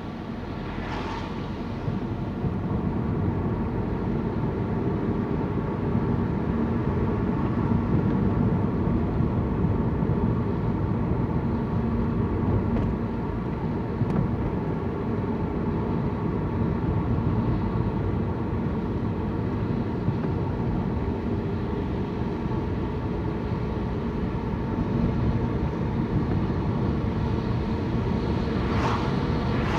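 Car engine and road noise heard from inside the cabin while driving: a steady hum with a faint engine drone running through it, getting a little louder about two seconds in.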